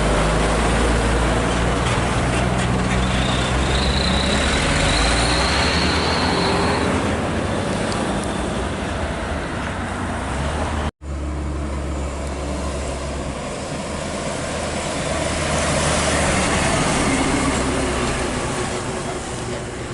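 Heavy diesel engines running with steady traffic noise, strongest in the low end. The sound cuts off abruptly about halfway through and resumes straight away at a similar level.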